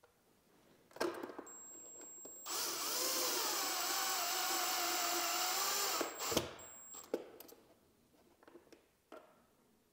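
Power drill driving a receptacle's mounting screw into the electrical box, running steadily for about three and a half seconds with its pitch wavering under load. A few sharp clicks and knocks of handling follow.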